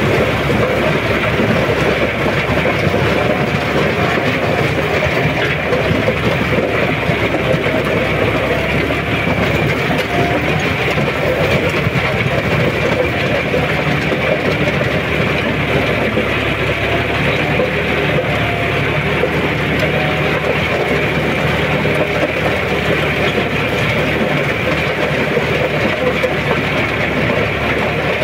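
John Deere 5210 tractor's three-cylinder diesel engine running steadily under load while pulling a rotavator through the soil, heard from the driver's seat.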